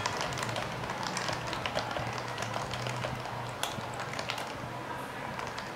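Continuous fast, irregular typing on a Topre-switch keyboard: a steady stream of keystroke clicks over a faint low hum.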